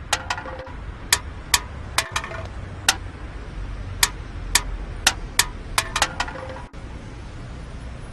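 A series of about a dozen sharp, irregular clicks, some with a brief ring, over a low steady hum.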